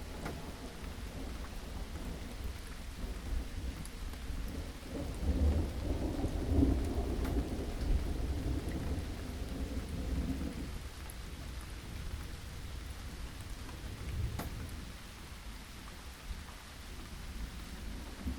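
Steady rain with rolling thunder: a deep rumble swells about five seconds in, peaks a couple of seconds later and fades over the next few seconds, with a shorter rumble about two-thirds of the way through.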